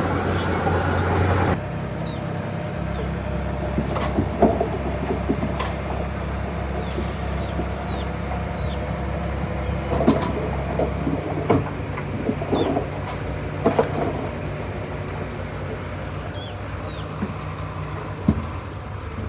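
Diesel engine of heavy earthmoving machinery running steadily, with occasional sharp knocks and clanks.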